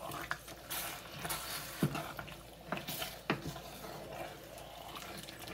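Wooden spoon stirring thick beef-and-tomato goulash in a stainless steel pot, with wet squelching and scraping and a few sharp knocks of the spoon against the pot, the loudest about two seconds and three and a half seconds in.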